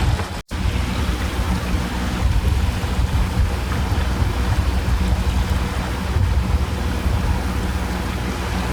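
Wind buffeting the microphone over the steady drone of a small sailboat's motor running under way.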